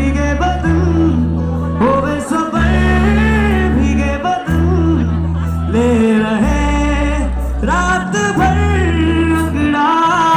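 A male singer performing live, with wavering, ornamented sung phrases over sustained low bass chords that change about every second and a half.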